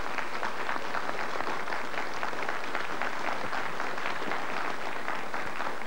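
Television studio audience applauding steadily.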